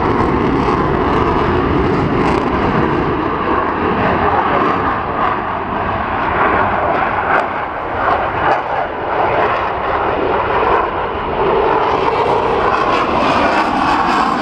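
Eurofighter Typhoon's twin jet engines running loud and steady through a tight display turn. The noise eases slightly about halfway and builds again near the end.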